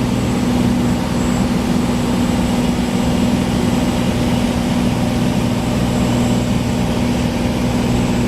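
Small bush plane's piston engine and propeller running steadily at constant power, a steady low drone.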